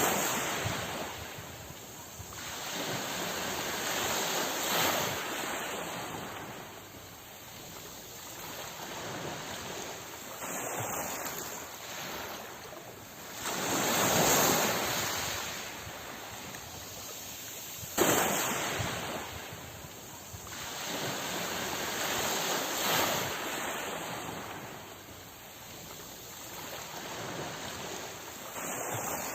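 Sea waves surging in and washing back, the surf swelling and fading every few seconds, with the loudest waves about halfway through and a sharp break a few seconds later.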